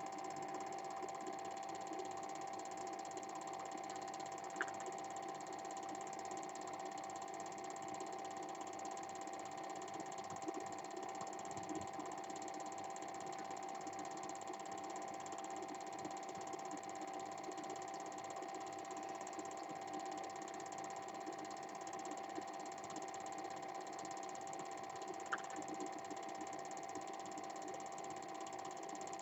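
A standard 8mm cine projector running steadily: a constant mechanical whir with a steady tone, broken by a couple of short clicks.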